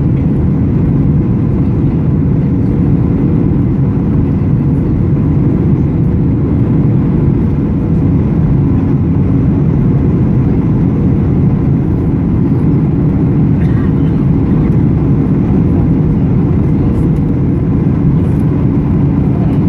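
Steady, deep cabin roar of a Boeing 737-800's CFM56-7B engines and the airflow over the airframe, heard from a seat over the wing on approach with flaps extended, with a faint steady hum on top.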